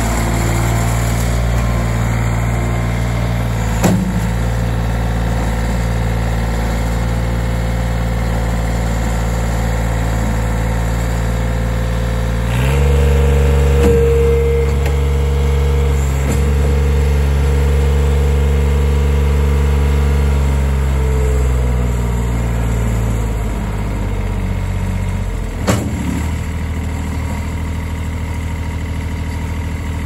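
John Deere 575 skid steer's diesel engine running at low speed, then revving up sharply about a third of the way in. It holds the higher speed for around eight seconds and settles back down. Two short knocks come, one early and one near the end.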